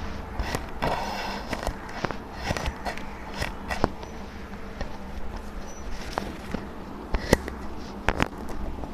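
Packed kinetic sand being cut with a knife: irregular soft crunching and crumbling, with scattered sharp clicks, the loudest about seven seconds in.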